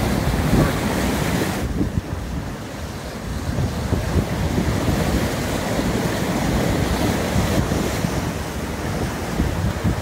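Wind buffeting the microphone over the rush and slap of water along the hull of a J/33 sailboat under way in strong wind. The upper hiss drops off abruptly a little under two seconds in.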